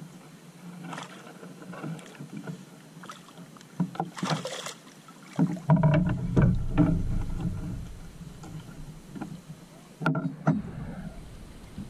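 Water sloshing and splashing against a small outrigger boat's hull, with scattered knocks. A louder stretch of low rumbling and splashing starts about halfway through.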